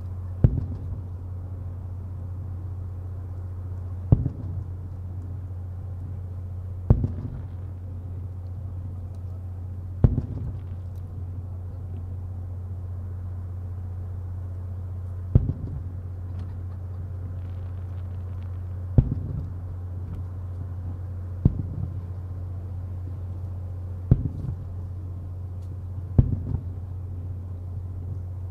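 Fireworks shells bursting one at a time: about nine single booms a few seconds apart, each followed by a short rumbling echo, over a steady low hum.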